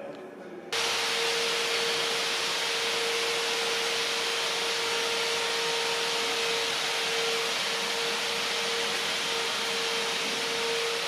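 A machine starts abruptly and runs steadily: a loud, even hiss with a constant whine held under it.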